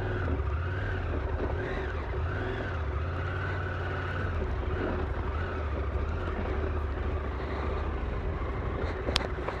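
Husqvarna Norden 901's parallel-twin engine running at low speed on a rough gravel track, its note rising and falling gently with the throttle.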